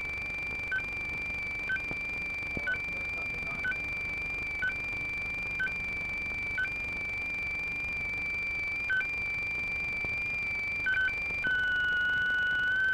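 Facsimile transmission signal: a steady high tone broken about once a second by a short blip of a lower tone, the pattern of a drum fax machine's phasing signal. Near the end it switches to a steady lower tone with a fainter higher tone above it.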